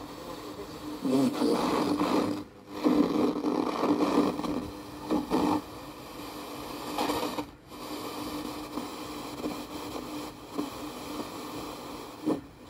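Speaker output of a Sony CXA1619 multi-band radio receiver board: noisy, hissy reception with a steady low hum under it. It cuts out briefly about three times.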